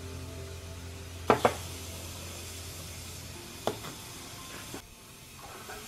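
Small clay pots handled and set down: two sharp ceramic clunks, the louder about a second in and a smaller one near four seconds, over a steady hiss.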